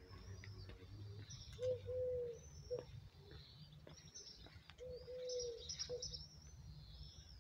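A dove cooing a short-long-short phrase twice, while small birds chirp high above, over a low steady rumble.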